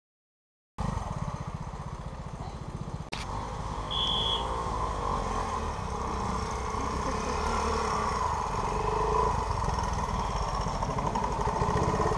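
Classic trials motorcycle engine running at low revs with rapid low firing pulses, growing louder near the end as the bike comes closer. A brief high tone sounds about four seconds in.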